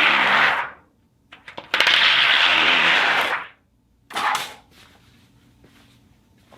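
Steel sheet worked for a foley recording, giving a harsh rasping noise. One passage ends just under a second in, a second lasts about two seconds, and a brief third comes about four seconds in.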